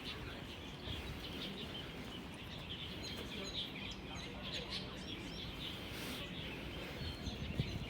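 Small birds chirping and twittering in short calls over a steady low outdoor hum.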